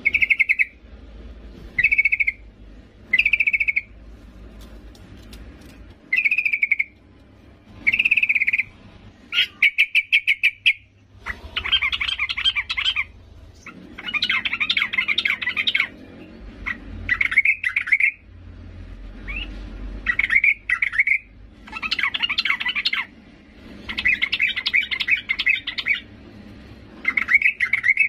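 Yellow-vented bulbul calling, the female's call to a male. It gives short separate chirps for the first few seconds, then a quick run of clicks, then longer bubbly chattering phrases every couple of seconds.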